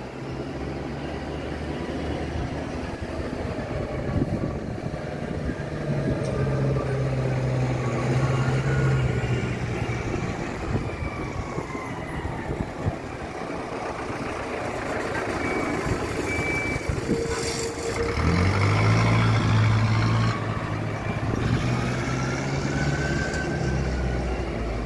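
Jet engines of a Cathay Pacific Airbus A330 on final approach and landing, with slowly sliding engine tones. Under them runs a steady low engine hum that rises in pitch and grows louder about eighteen seconds in.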